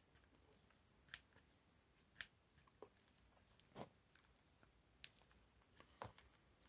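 About six faint plastic clicks, roughly a second apart, from a brush cutter's throttle trigger lever being pressed and sprung back by its return spring inside the handle housing.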